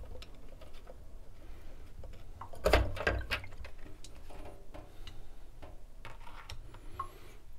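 Small clicks and scrapes of a Watts 909 backflow assembly's number 1 check being worked loose with a tool and lifted out of the bronze body, with a louder knock about three seconds in.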